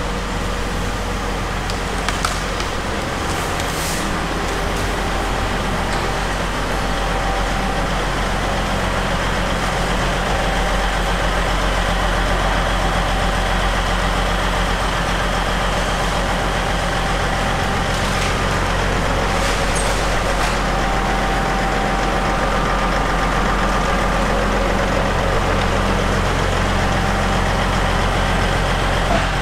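Heavy diesel machinery running steadily: the Rotochopper B66 grinder working, with the CAT 320E excavator feeding it, making a deep, even engine drone. A few sharp cracks of wood break through now and then.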